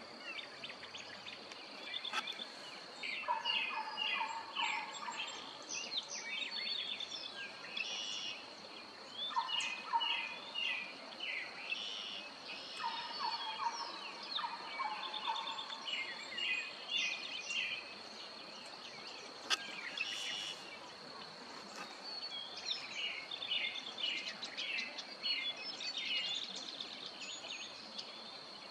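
Several songbirds sing short, repeated phrases over a steady, high, thin tone, with one sharp click about two-thirds of the way through.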